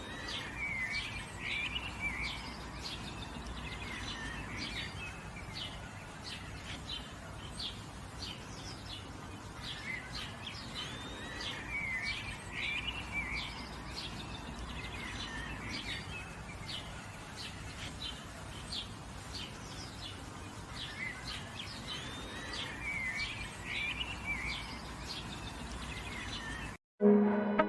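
Several songbirds chirping and trilling over a steady background hiss of forest ambience, with a cluster of calls recurring about every ten seconds. Near the end the birdsong cuts off and synthesizer music begins.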